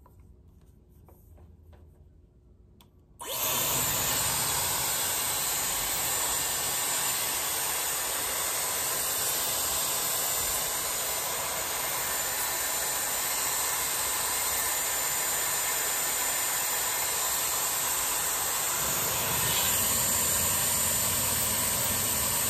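Dyson Airwrap hair styler switched on about three seconds in, its motor running and air blowing steadily through the curling barrel, with a high whine over the rush of air; the sound swells slightly near the end.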